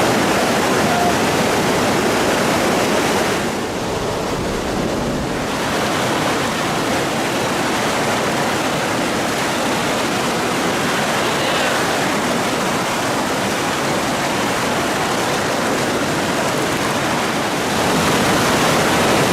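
Whitewater river rapids rushing, a loud, steady wash of water noise that dulls briefly about four seconds in.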